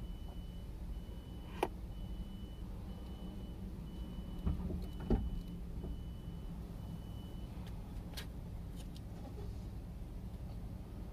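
Low steady rumble of a stationary car idling, heard from inside the cabin, with a high electronic beep repeating about once a second for the first seven seconds or so. A few short clicks and two soft knocks come through over it.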